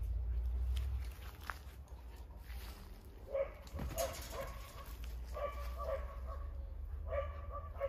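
A dog barking in a run of short, pitched barks, about two a second, starting a few seconds in, at a black panther pacing the other side of the fence. A low microphone rumble is louder in the first second.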